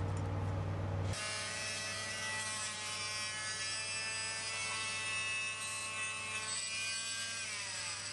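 A low steady hum for about the first second, then an angle grinder fitted with a sanding disc running against a crusted stainless steel fitting: a steady high motor whine that drops in pitch near the end as the motor slows.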